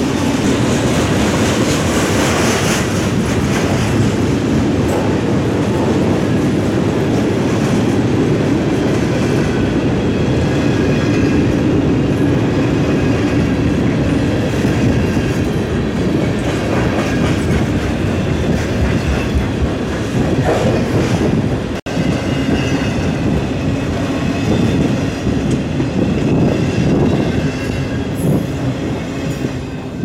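Freight cars rolling past on the rails: a steady rumble of wheels with clickety-clack over the joints and a thin high wheel squeal at times. It drops out for a moment about two-thirds through and fades at the end as the last cars go by.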